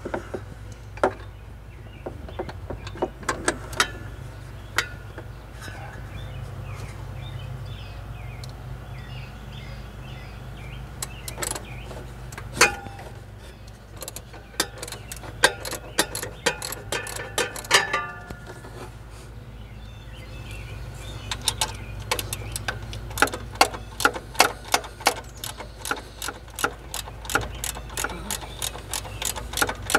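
Socket ratchet clicking as the 15 mm bolts of a manual belt tensioner are loosened on a Jeep 4.0L straight-six, with scattered metal-on-metal knocks of the tool against the engine. The clicks come in short runs at first, then settle into a steady run of about two to three clicks a second over the last third, over a low steady hum.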